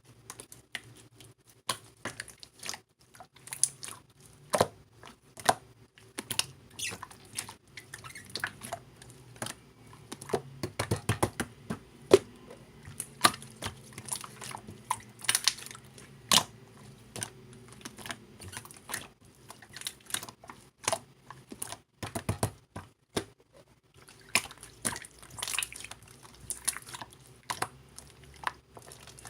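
Clear slime being worked by hand, giving a run of irregular sticky clicks, pops and squelches.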